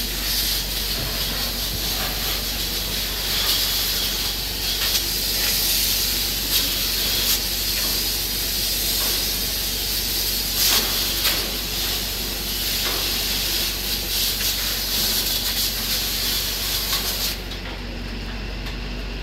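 Fire hose spraying a water jet onto burning rubbish bins: a steady hiss of spray and steam, with a few short knocks and a steady low hum beneath. The hiss cuts off near the end.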